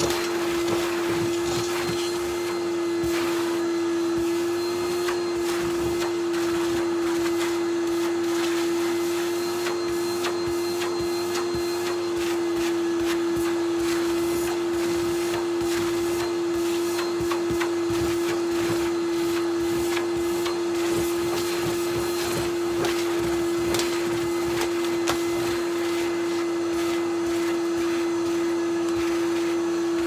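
Numatic Henry cylinder vacuum cleaner running steadily with a constant pitched hum as its floor tool is pushed over a rug. Frequent small clicks and rattles run through it as crushed crisp crumbs are drawn up the hose.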